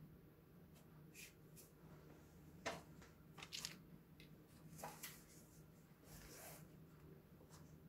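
Near silence: room tone with a steady low hum, broken by a few faint short clicks and rustles, the clearest about two and a half and five seconds in.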